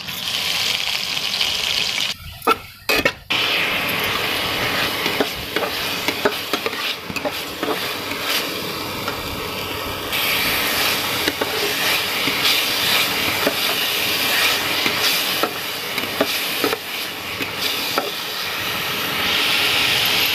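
Onion paste frying in hot oil in a metal kadai, sizzling steadily while a steel spatula stirs it, scraping and clicking against the pan. The sound drops out briefly a couple of times about two to three seconds in.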